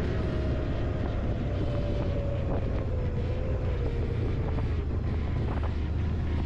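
Quad bike (ATV) engine running steadily at low speed, its note easing slowly lower, with wind on the microphone and a few light knocks.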